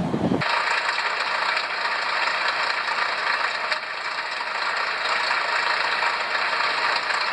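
A train's rumble gives way abruptly, about half a second in, to a machine's steady, even, hiss-like mechanical noise, strongest in the high range with little low rumble.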